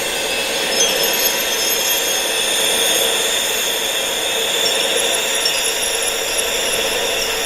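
Steady wind-like noise layered with several sustained high-pitched tones and a few faint glassy clinks, a tinnitus-masking sound-therapy soundscape.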